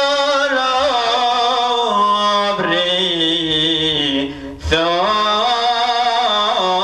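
A man chanting a Syriac hymn solo into a microphone, holding long notes with wavering ornaments. His voice breaks off briefly for a breath about four and a half seconds in, then carries on.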